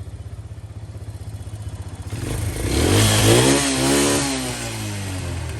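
Arctic Cat 400 ATV's single-cylinder four-stroke engine idling with a steady pulse, then revved once, about two seconds in, rising in pitch and dropping back to idle. The freshly repaired carburetor takes the throttle cleanly, with no bogging.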